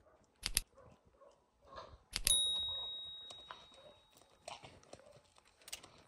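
A quick double metallic click, then a sharp metallic strike about two seconds in that rings on like a small bell, fading over about two seconds, with faint scattered clicks around it.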